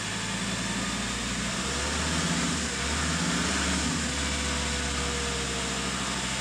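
2019 Ford Ranger's 3.2-litre five-cylinder turbo diesel running: it rises from idle to raised revs a couple of seconds in, holds there for a few seconds, then drops back to idle near the end.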